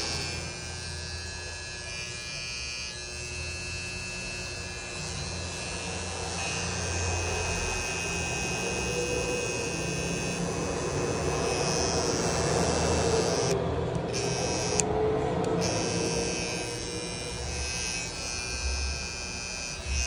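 TPOB X cordless hair trimmer running steadily with a gold FX blade fitted: a continuous motor and blade buzz with a high whine on top, a little louder around the middle.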